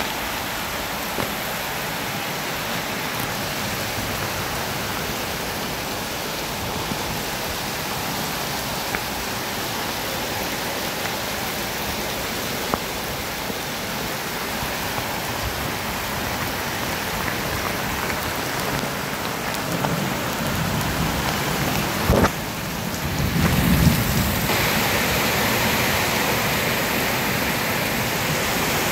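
Heavy rain falling as a steady hiss. About 22 seconds in there is a sharp knock and a few seconds of low rumbling, after which the hiss turns brighter.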